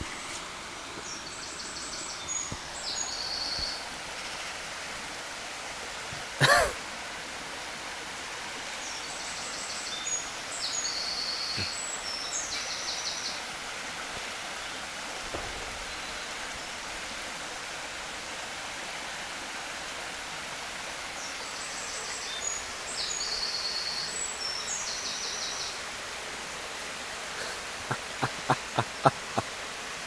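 Small woodland burn running steadily, with a songbird singing the same short high phrase three times, about ten seconds apart. A sudden loud knock about six seconds in is the loudest sound, and a quick run of clicks comes near the end.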